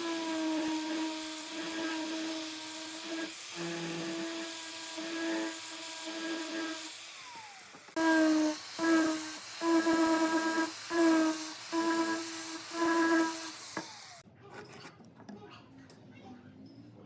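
Handheld electric power tool running with a steady motor hum and hiss. From about 8 s to 14 s it sounds in louder short bursts about twice a second, then stops, leaving light clicks and rubbing of hand work on wood.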